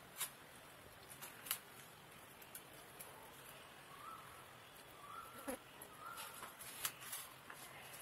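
Faint eating sounds: scattered soft clicks and smacks as half-boiled eggs are eaten by hand off banana leaves. A faint wavering call sounds in the background around the middle.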